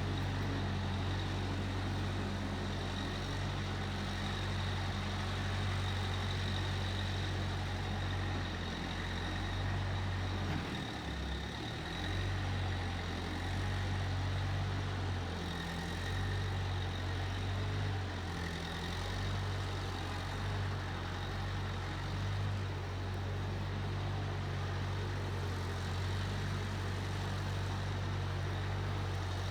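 Case 1530 Uni-Loader skid steer's engine running steadily. Its note dips and shifts briefly about eleven seconds in, and shifts slightly again a little later.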